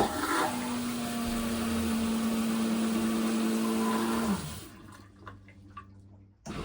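Electric marine toilet by the Italian maker Tecma flushing in its empty-the-bowl mode. Its pump motor runs with a steady, very quiet hum over rushing water for about four seconds, then winds down and stops.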